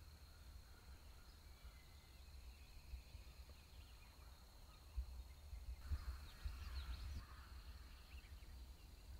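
Faint wind rumble on the microphone with scattered bird calls, and a busier flurry of chirping calls about six seconds in.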